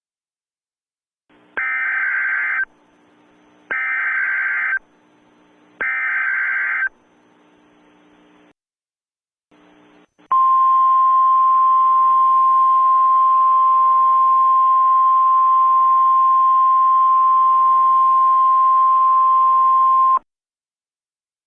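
Emergency Alert System header: three short data bursts about two seconds apart, then a steady single-pitch attention tone that starts about ten seconds in, holds for about ten seconds and cuts off sharply. Faint hiss sounds between the bursts.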